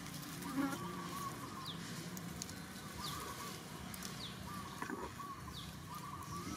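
Repeated short high-pitched animal calls over a faint outdoor background. A quick falling whistle and a wavering chirp come about every second and a half.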